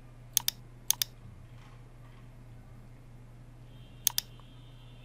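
Computer mouse clicking: three sharp double clicks, press and release each, the first two close together about half a second apart and the third about four seconds in.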